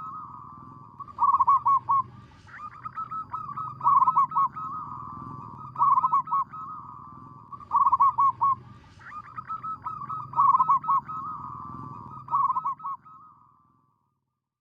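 Zebra doves cooing: repeated phrases of quick, rolling staccato notes, one about every second and a half to two seconds, over a steady low hum. Twice a higher, faster run of notes joins in. The calling stops shortly before the end.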